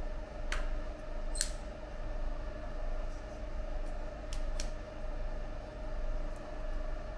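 Steady electrical hum with a held mid-pitched tone, and a few light clicks and taps from a caliper being handled against a mortar cylinder and a pen set down on the bench. The loudest tap comes about a second and a half in, and two quick clicks come close together a little past halfway.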